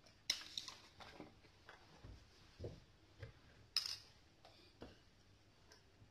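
About ten irregular light clicks and knocks of kitchen items being handled on a counter, as a milk carton is picked up and brought to a plastic blender jug. The sharpest click comes near the start and another a little after halfway.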